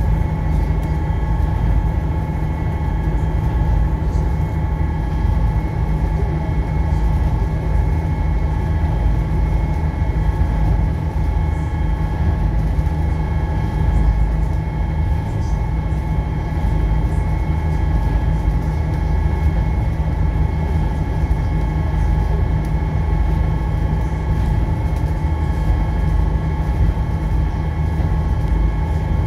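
Passenger ferry's engine running steadily under way: a deep rumble with a steady whine of several tones above it, mixed with the rushing wash of the boat's wake.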